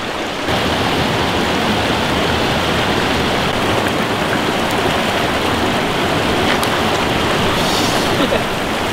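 Mountain stream rushing over boulders, a steady loud rush of water that swells up about half a second in.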